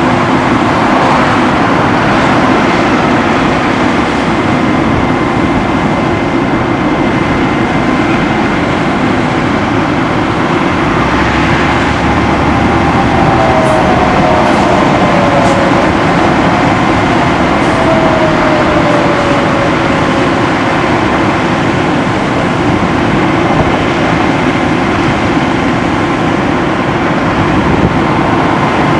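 Cat C13 diesel engine of a Freightliner M2 bucket truck running steadily to drive the Altec HL125 boom's hydraulics as the boom moves, with a faint falling whine about halfway through.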